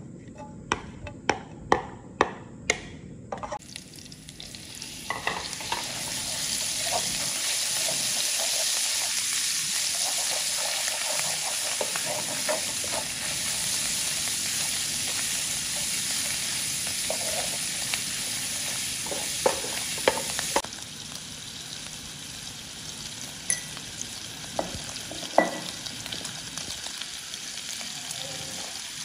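Minced pork frying in hot oil in a nonstick wok and being stirred with a spatula. A run of sharp taps comes first, then the sizzle builds over a few seconds, stays strong, and drops suddenly about two-thirds through to a quieter sizzle, with occasional knocks of the spatula on the pan.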